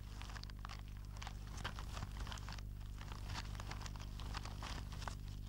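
Soil crackling and crumbling as a mole cricket digs through earth with its shovel-like forelegs: a run of quick, irregular dry clicks and scrapes.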